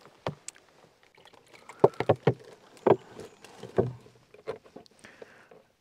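Water swished and sloshed inside a camp kettle cup to rinse it out, with a few sharp knocks of the cup scattered through, the busiest stretch around the middle.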